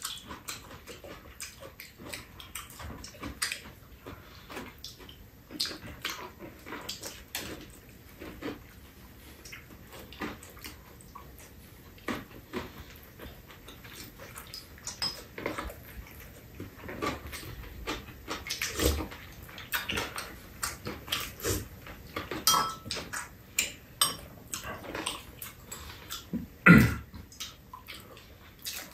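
Mukbang eating sounds: chewing and lip-smacking, with metal spoons clinking against bowls and soup being sipped, in many irregular short clicks. One louder, low sound comes near the end.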